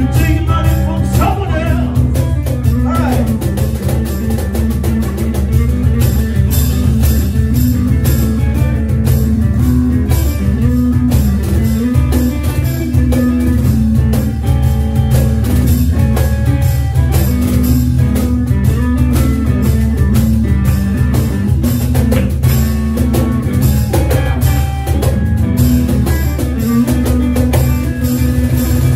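Live blues band playing: an electric archtop guitar and a cajón, with a man singing.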